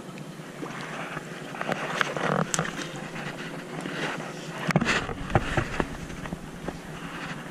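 Water splashing and sloshing around a fishing raft, with scattered small knocks and clicks and one louder splash or knock about five seconds in.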